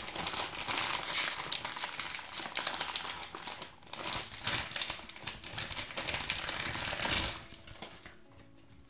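Foil blind-bag packet crinkling and tearing as it is ripped open by hand: a dense run of crackles that dies away about seven seconds in.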